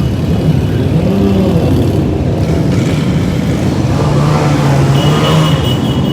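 Motorcycle engines running loudly as a mass of bikes rides by, their pitch rising and falling. A steady high tone joins about five seconds in.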